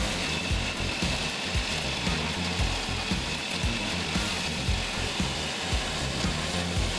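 Large tree chipper running and grinding wood, a dense steady machine noise broken by irregular crunching knocks.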